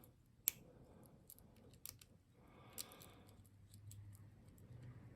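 Faint metallic clicks and ticks of a lock pick and tension wrench working the pins of a padlock, with one sharper click about half a second in.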